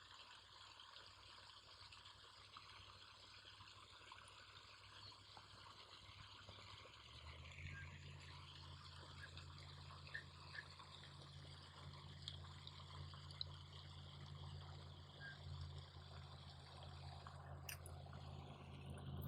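Near silence: faint background hiss, joined about seven seconds in by a low steady hum.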